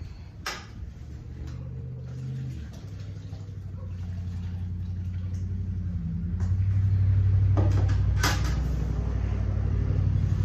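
A low, steady rumble that grows louder over several seconds, with a few sharp knocks: one about half a second in and two more after six and eight seconds, as a metal bucket of manure is handled and tipped into a funnel.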